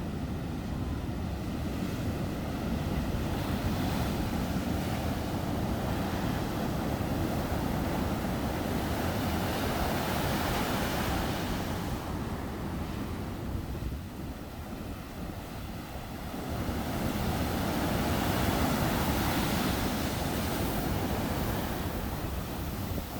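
Sea waves breaking on a beach and washing up the shore as white foam, swelling twice in loudness with a lull between, with wind buffeting the microphone.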